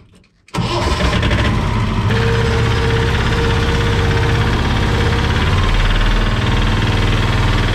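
Small farm utility vehicle's engine starts abruptly about half a second in, then runs loudly and steadily with a rapid, even beat and a low rumble.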